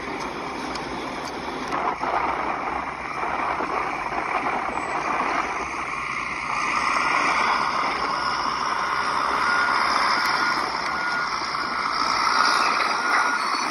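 Tracked landfill bulldozer running, a steady machinery noise that grows a little louder about halfway through.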